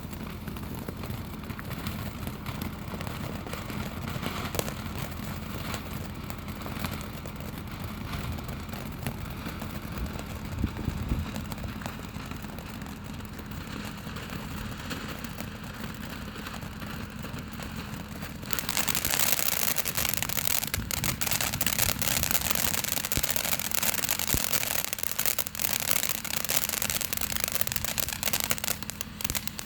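Ballerina's Ball fountain firework igniting about two-thirds of the way in: a sudden, loud, steady hiss of spraying sparks with crackling. Before it lights, only low outdoor background noise with a faint steady hum.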